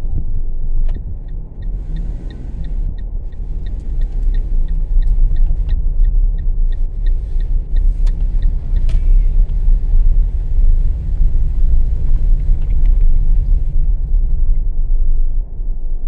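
Car driving slowly with a steady low rumble from engine and road inside the cabin. For several seconds in the first half an even ticking comes about three times a second.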